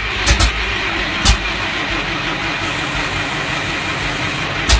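J.G. Brill Model 55 railcar engine being cranked over in a start attempt, not yet running on its own, with a steady mechanical clatter and a few sharp knocks.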